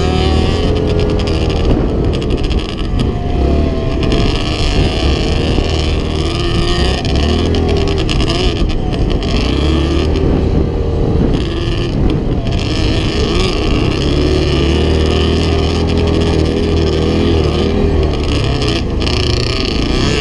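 Yamaha Grizzly 700 ATV's single-cylinder four-stroke engine running steadily while riding, its pitch rising and falling with the throttle, under a constant hiss.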